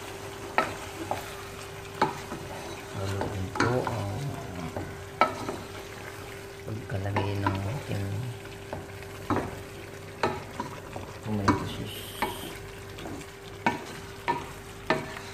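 A wooden spatula stirring a thick meat-and-vegetable stew in a pot, knocking and scraping against the pot at irregular intervals, while the stew sizzles. A steady hum runs underneath.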